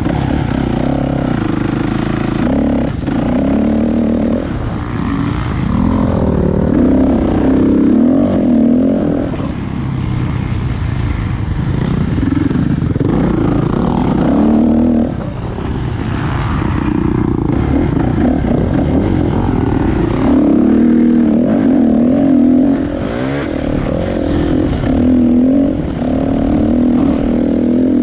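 Kawasaki dirt bike engine being ridden hard, its pitch repeatedly rising as the throttle opens and falling as it is shut off or shifted.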